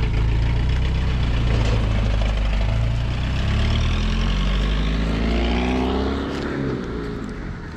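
Small pickup truck's engine running as the truck pulls away, then revving up with a rising pitch about five seconds in and fading as it drives off.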